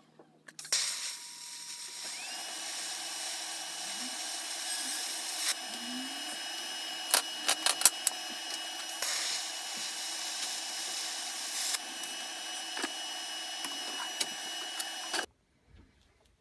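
Electric welding arc on a stainless steel bracket, a steady hiss and hum with a few sharp crackles about halfway through. It cuts off abruptly near the end as the arc is broken.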